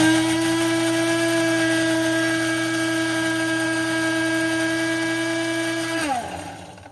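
Brod & Taylor electric spice grinder's motor running at a steady high whine while grinding fennel seeds. About six seconds in it is released and spins down with a falling pitch.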